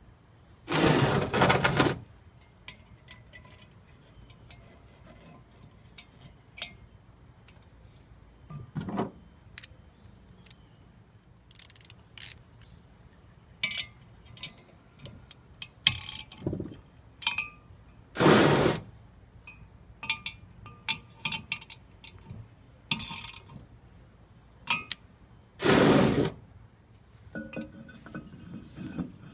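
Loose metal parts and tools clinking and clanking as a brake drum forge is assembled, with three louder, harsher bursts about a second long: one near the start, one in the middle and one near the end.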